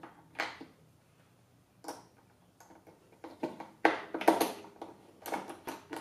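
Hand screwdriver turning screws through a plastic carry handle into a plastic vacuum power head: a string of short clicks and scrapes, a few isolated ones at first and a busier cluster from about three seconds in.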